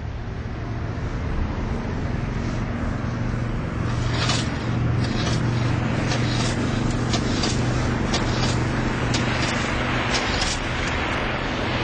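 Twin propeller engines of a flying boat, with spray hissing off its hull, running steadily as it skims across the water straight toward the listener. The engines get louder over the first few seconds. A string of sharp cracks sounds from about four seconds in.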